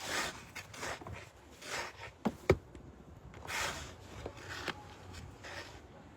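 Snow shovel scraping and scooping snow in a run of crunching strokes about a second apart, with two sharp knocks about halfway through, the second the loudest.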